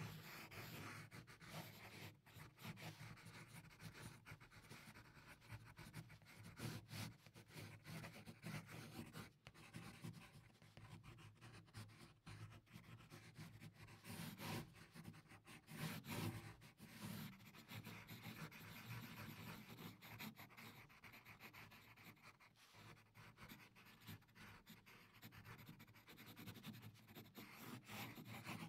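Faint pencil scratching on paper in short, irregular strokes while sketching.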